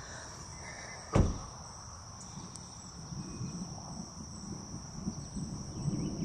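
Steady chorus of insects, a continuous high-pitched drone on one tone, broken by one sharp thump about a second in. A low rumble builds near the end.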